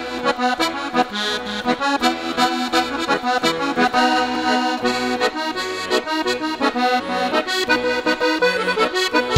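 Instrumental intro of a Norwegian dance-band song: a lively tune over a steady, bouncing bass line, with no singing yet.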